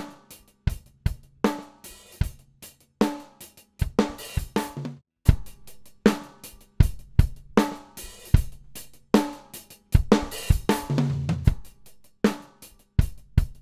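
A recorded drum-kit loop played as a demonstration of compression: first the heavily compressed version, then, after a brief break about five seconds in, the same loop with the dry and heavily compressed tracks blended (parallel or 'New York' drum compression) for more body.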